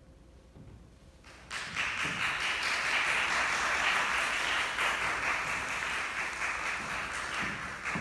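Audience applauding. The applause breaks out after a quiet pause about a second and a half in, holds steady, and eases off near the end.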